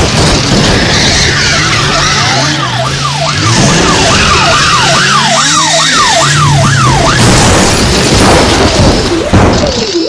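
Processed police siren sound effect in a rapid up-and-down yelp from a few seconds in until about 7 seconds, then a slower wail near the end, over a loud, noisy mix with a steady low drone.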